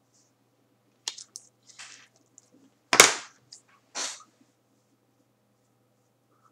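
Short, sharp puffs of breath close to the microphone: the loudest about three seconds in and another about a second later, with a few small clicks just before them.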